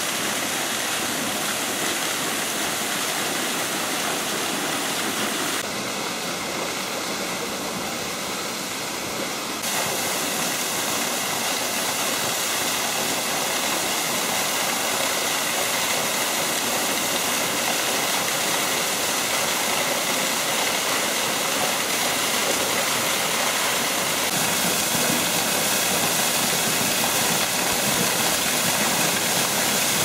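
Drymonas waterfall pouring into its rock pool: a steady rush of falling water.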